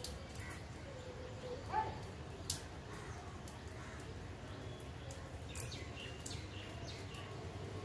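Outdoor ambience in a monsoon wind: a steady low rumble of wind on the microphone, broken by scattered short bird chirps and a few sharp high ticks.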